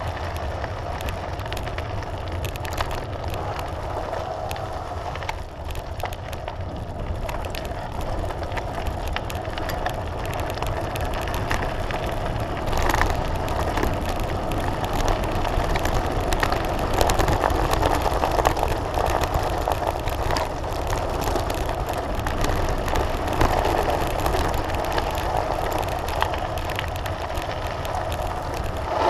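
Mountain bike descending fast on a loose gravel track: tyres crunching over the gravel with many small rattles and clicks, over a steady low rumble of wind on the microphone. It gets louder about halfway through as the descent speeds up.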